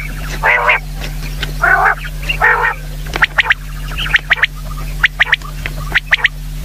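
Common quail calling: a few harsh, raspy calls in the first few seconds, then short sharp notes in groups of two or three, about once a second, over a steady low hum.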